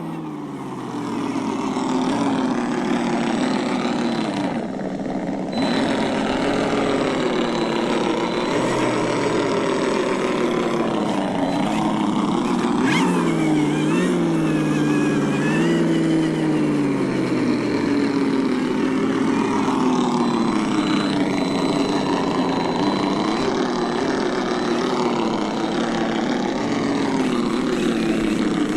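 Simulated engine sound from an ESS-One sound unit on a 1/10 scale RC crawler, its note rising and falling over and over as the throttle is worked.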